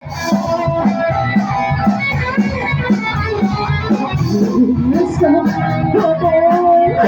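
Band playing live at full volume, guitars over a steady beat, with a melody line sliding up and down in pitch in the second half.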